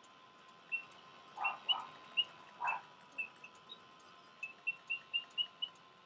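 A mechanical singing bird in a cage automaton giving a string of short, high chirps, a dozen or so, quickening into an even run of about four a second near the end, with three duller soft sounds around the middle. The chirps are tiny, which the owner puts down to only the lower of its two bellows working.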